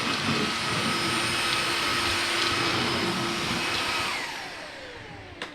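Vactidy V9 cordless stick vacuum's brushless motor running with a steady high whine, then switched off about four seconds in, its pitch falling as it spins down. A click near the end.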